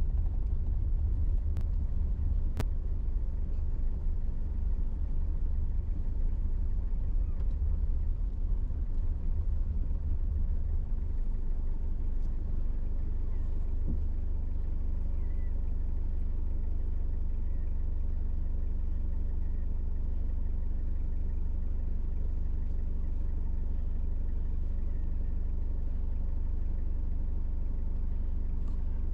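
Steady low rumble of a vehicle driving on a paved road, tyre and wind noise with no engine note standing out. It is rougher and more uneven at first and settles to an even drone about halfway through.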